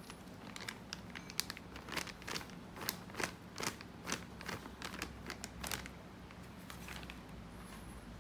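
Plastic bag crinkling in a run of quick, sharp crackles as powder is shaken out of it, for about six seconds before it stops, over a low steady hum.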